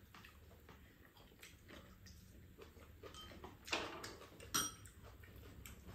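A few faint clicks of a metal spoon and chopsticks against ceramic bowls during a meal, scattered a second or so apart, the loudest about four and a half seconds in.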